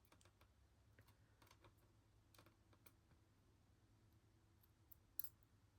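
Faint, scattered small clicks and taps of tiny lock pins being handled and set back into a padlock's plug, with a sharper click about five seconds in, over a faint low hum.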